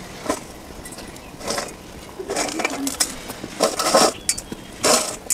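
A steel bowl clinking against a steel kadhai, with small splashes, as dry Maggi noodle cakes are dropped into boiling gravy. The sounds come in short, sharp bursts about once a second.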